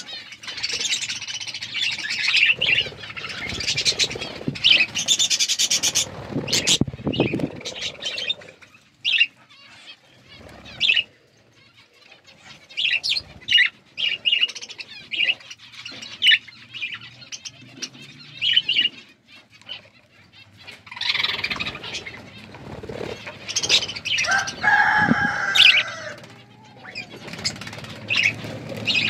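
Budgerigars chirping and chattering. There are busy bursts of chatter near the start and again about three-quarters of the way through, with scattered single chirps in between and a spell of low rustling about six seconds in.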